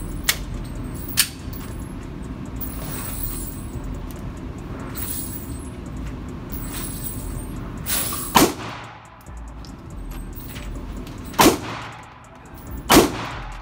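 Three pistol shots, about 8, 11 and 13 seconds in, each followed by echo off the walls of an indoor range, after two sharp clicks in the first second or so, over a steady low hum.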